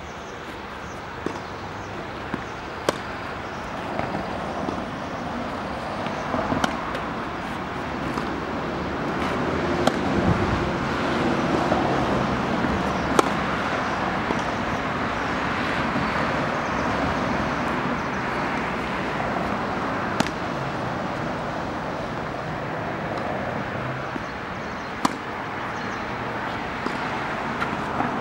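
Tennis racket striking a ball, single sharp pops a few seconds apart, over a steady outdoor background rush that grows louder for a while in the middle.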